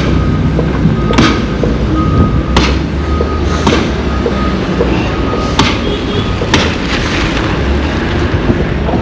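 Heavy road-construction machinery running with a continuous low rumble, a backup alarm beeping about once a second, and several sharp knocks or bangs.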